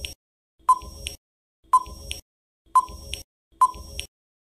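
Quiz countdown-timer sound effect: a short electronic beep about once a second, four times.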